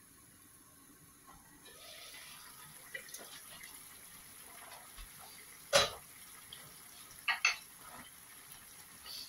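Chicken curry simmering in an uncovered steel wok, bubbling and sizzling louder once the lid comes off, a little under two seconds in. About six seconds in there is one loud metal clank, and about a second and a half later two quick metal clinks.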